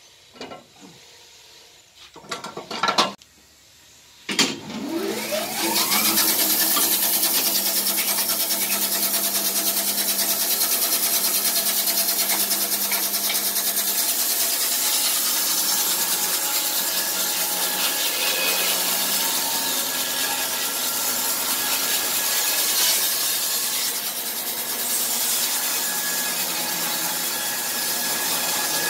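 A few loud knocks, then a Wood-Mizer LT15 band sawmill's electric motor starts about four seconds in, its pitch rising as the band blade spins up. The blade then saws steadily through a log.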